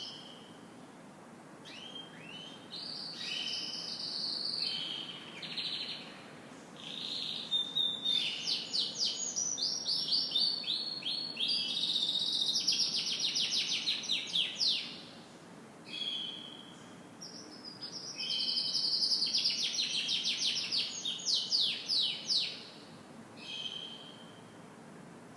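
Domestic canary singing in phrases of fast, high trills with short pauses between them. It sings two long trilled runs of several seconds each, one through the middle and one near the end.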